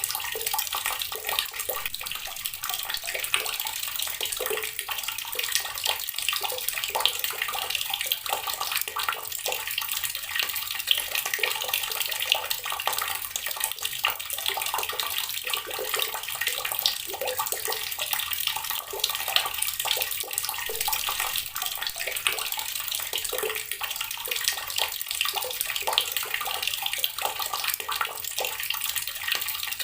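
Water running steadily from a tap, a constant splashing stream.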